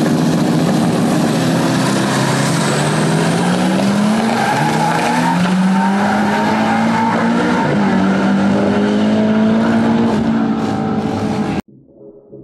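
Two cars' engines at full throttle in a drag race, the pitch climbing and dropping back with each gear change, with some tyre noise, cutting off suddenly near the end.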